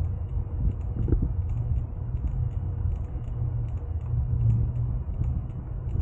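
Bicycle ride through a forest: a steady low rumble from riding the path, with faint scattered clicks.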